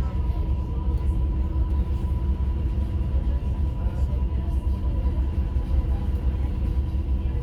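Steady low rumble aboard a ship, with a faint steady high whine over it.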